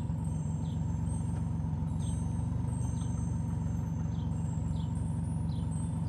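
Steady low truck engine running: a cartoon sound effect for the trucks driving. Short bird chirps come about once a second.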